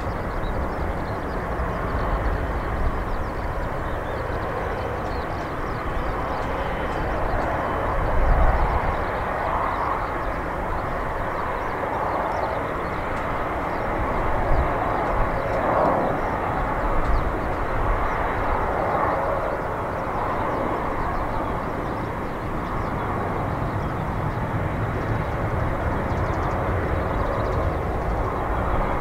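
Boeing 777-200LR's GE90 jet engines running at low taxi thrust as the airliner turns onto and lines up on the runway: a steady jet rush, with a few low gusty swells, the largest about eight seconds in.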